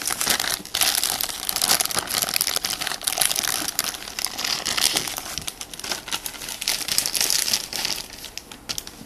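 Clear plastic bags crinkling and rustling as they are handled, a dense run of small crackles that eases off near the end.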